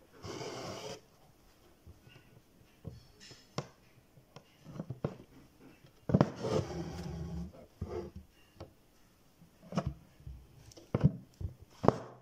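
Embroidery thread being pulled through the fabric of a tote bag stretched in a hoop: a short rasping swish near the start and a longer one about six seconds in, with scattered small clicks and taps of the needle and fingers on the taut fabric.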